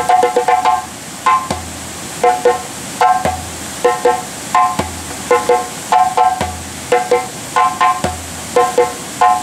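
Djembe played solo by hand: a fast flurry of sharp, ringing strokes, then a repeating pattern of paired slaps and tones, a group about every three quarters of a second.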